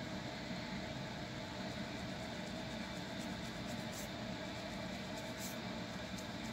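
Fingernails scratching a dry, flaky scalp through tightly coiled hair, a soft scratchy rasp over a steady hiss.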